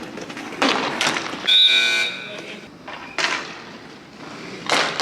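A short honk-like tone lasting under a second, about a second and a half in, with several sharp knocks or rustles around it.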